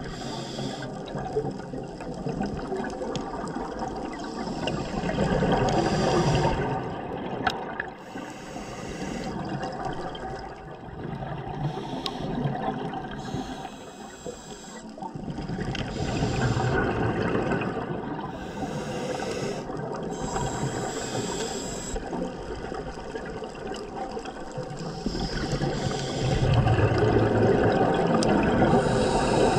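Scuba diver breathing through a regulator underwater: rushing, bubbling noise that swells and fades every few seconds, breath after breath.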